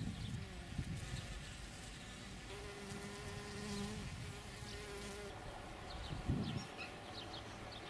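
A flying insect buzzing steadily close by for about three seconds in the middle. Low rumbles of wind on the microphone at the start and again about six seconds in, and faint short bird chirps near the end.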